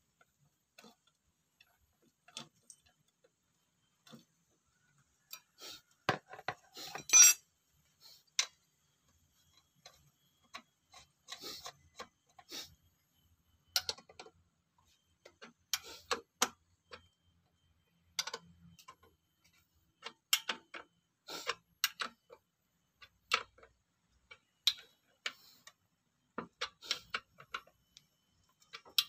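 Metal clicks and clinks of a hand wrench and socket on the cylinder head nuts of a Yamaha Mio scooter engine as the head is bolted down. The clicks come irregularly, with a louder clatter about seven seconds in.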